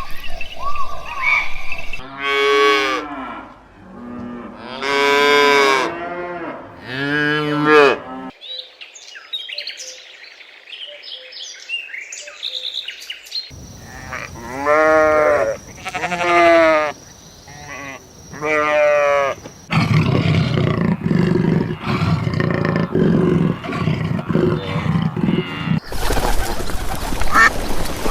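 Farm animal calls in a run of short clips: three long, wavering pitched calls, a few seconds of high bird chirping, three more long calls, then a rougher low-pitched stretch of animal noise.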